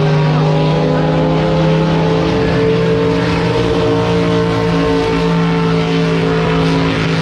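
Drag boat's racing engine running loud at a steady speed, its pitch holding almost level.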